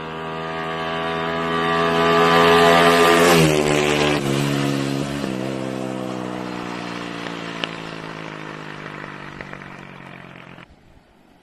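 Honda XRM underbone motorcycle's single-cylinder four-stroke engine on a test ride after an engine upgrade, approaching at speed and passing close by. Its note drops in pitch as it goes past, dips twice more as the rider shifts up, then fades as it pulls away, cutting off suddenly near the end.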